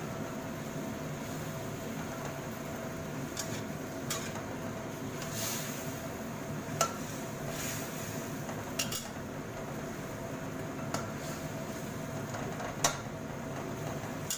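Metal spatula stirring in an aluminium wok, scraping and now and then tapping against the pan in irregular sharp clicks, the loudest near the end, over a steady hiss.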